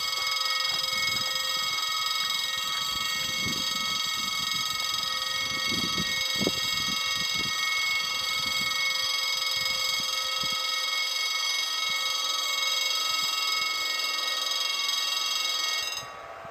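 Railway level-crossing warning bell ringing steadily, a high electronic ringing that starts abruptly and cuts off suddenly near the end. A few faint low thumps sound beneath it in the middle.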